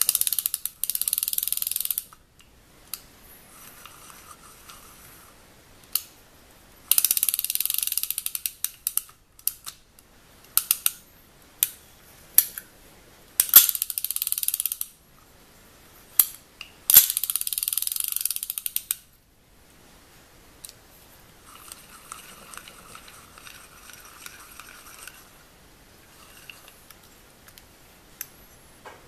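Vintage Sugita spinning reel cranked by hand in several bursts of a couple of seconds each: the gears whir as the rotor spins, with sharp clicks scattered between the bursts. The reel runs on bushings with no ball bearings and turns freely without binding after its rebuild.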